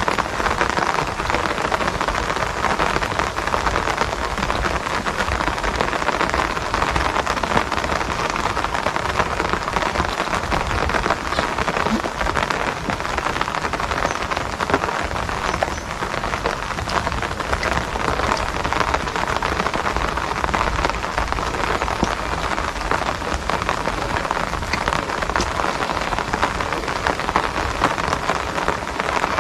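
Steady rain falling, a dense, even patter of countless drops with no letup.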